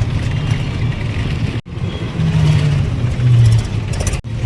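Engine and road noise of a moving vehicle, heard from on board as a steady low drone that shifts in pitch. The sound cuts out abruptly twice, about a second and a half in and near the end.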